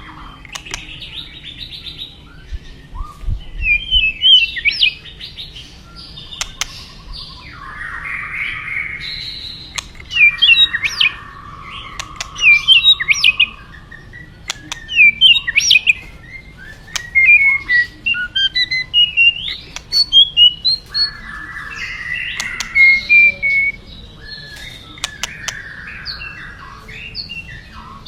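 White-rumped shama (murai batu) singing: a run of varied whistled phrases with quick up-and-down sweeps and sharp chirps, delivered in bursts every second or so.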